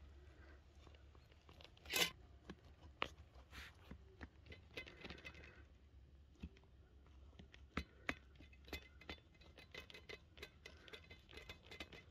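Knife cutting through the crisp crust of a lattice-topped pie on a metal tray: a run of small crunches and crackles, with a louder crunch about two seconds in and a few sharp clicks.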